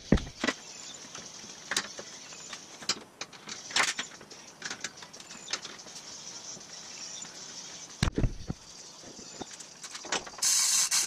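Scattered clicks, taps and metal knocks of steel frame parts and a bar clamp being handled, with a heavy clunk about eight seconds in. A loud hiss starts near the end.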